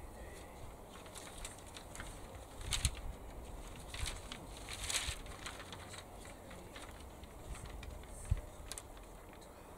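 Bamboo bean poles knocking and clattering against each other as they are picked over from a pile, in scattered sharp clacks. The loudest come about three seconds in, at five seconds, and just after eight seconds.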